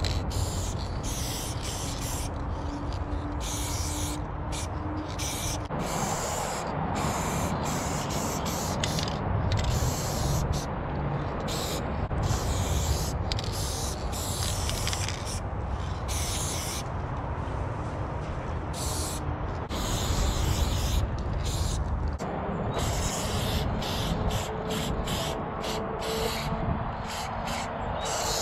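Aerosol spray paint can hissing in many short and longer bursts, stopping and starting again and again as lines and fills are sprayed, over a steady low rumble.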